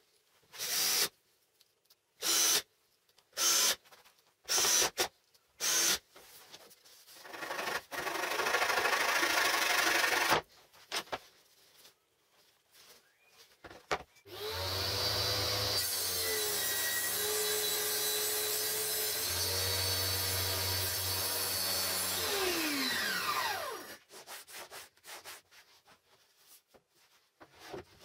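A few short hand-saw strokes on MDF, then a longer stretch of steady sawing. Then a table saw runs steadily while its blade cuts the kerf through the MDF sled base, and spins down with a falling whine near the end.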